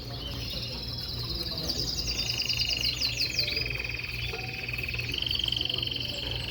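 Caged canaries singing: fast rolling trills, a higher run of rapid notes over a lower, sustained buzzing trill that starts about two seconds in and steps up slightly in pitch later, over a steady low hum.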